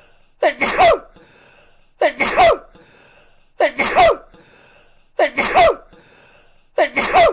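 A man sneezing again and again, the same sneeze looped: five identical sneezes about every 1.6 seconds. Each is a short sharp intake followed straight away by the louder sneeze.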